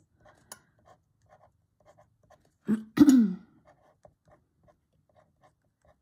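Black pen scratching faintly on watercolour paper in many short strokes, drawing lines around paint swatches. About halfway through, a brief hum from a woman's voice, falling in pitch, comes with a click and is louder than the pen.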